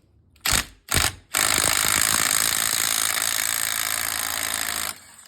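Impact wrench on a large socket, loosening a nut: two short trigger bursts, then a long continuous rattling run of about three and a half seconds that stops abruptly near the end.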